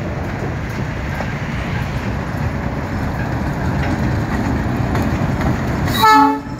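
ALCO RSD-16 diesel-electric locomotive hauling loaded ore hopper cars past at speed: steady rumble of the diesel engine and the wheels on the rails, growing as it comes close. Near the end the locomotive gives one short blast on its horn.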